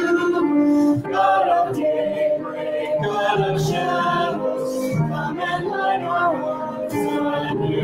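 A congregation singing a hymn, many voices together.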